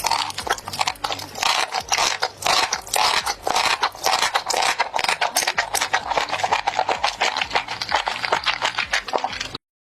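Close-up mukbang eating sounds: chewing and mouth smacking on spicy squid, a dense, fast run of clicks and crunches that cuts off suddenly near the end.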